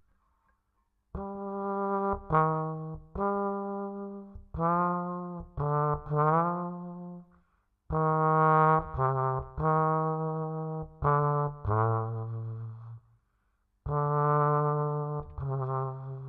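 A solo brass instrument playing a slow, low melody of held notes in short phrases, starting about a second in, with one note sliding upward partway through and a brief pause near the end.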